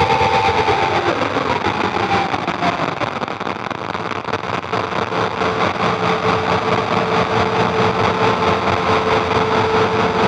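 Experimental electronic noise drone from a Roland V-Synth XT, shaped live on a Haken Continuum Fingerboard that sweeps its filter, resonance and overdrive: a dense, rough, fluttering noise with a held tone inside it. The tone slides down in pitch in the first few seconds, holds steady, then bends upward near the end.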